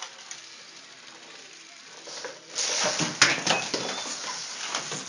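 Rustling clatter of a small toy car and a cat scrabbling on carpet, starting about two and a half seconds in, with a few sharp knocks.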